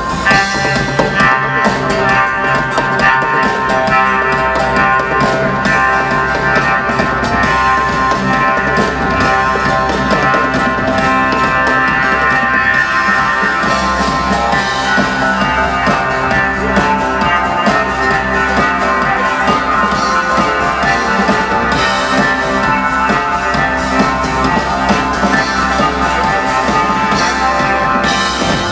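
Earth Harp playing live with a band: long held string tones over a rock drum kit beat.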